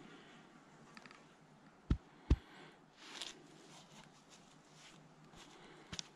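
Quiet handling sounds from a gloved hand on a dead sika stag's coat: soft rustling, two dull thumps about two seconds in, a brief rustle a second later, and one more thump near the end.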